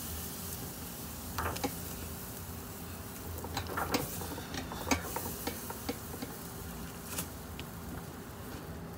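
Scattered light clicks and taps as raw pork butts are handled and set down on a drum smoker's wire cooking grate, over a steady low hum.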